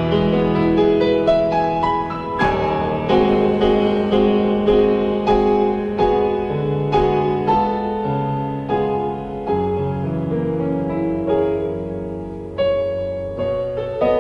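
Solo piano playing a slow, gentle piece in sustained chords, with a new note or chord struck roughly every half second.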